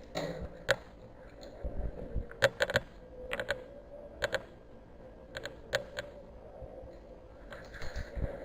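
Airsoft gun shots: about a dozen sharp cracks at irregular intervals, some single and some in quick pairs or short clusters.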